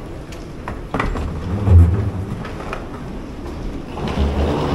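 Busy railway-station ambience heard from a descending escalator: a steady hum and background bustle, with a few sharp clicks about a second in and two low thumps, the louder one about two seconds in.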